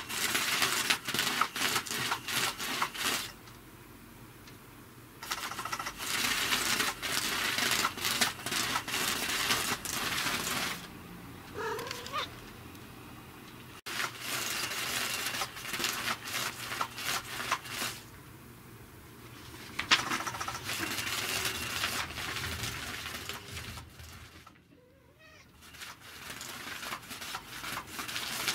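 Battery-powered 'Catch Me If You Can 2' electric cat toy running in bursts of a few seconds with short pauses between. Each burst is a rapid clicking and rustling as its motor drives the wand about under the fabric cover.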